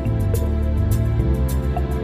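Background music: a gentle, soft instrumental track with sustained notes and a light, steady beat.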